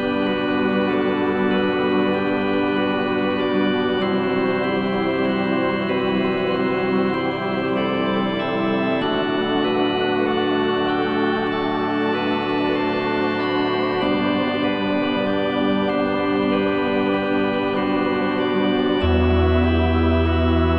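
Background music: slow, held keyboard chords that change every few seconds, with a deep bass note coming in near the end.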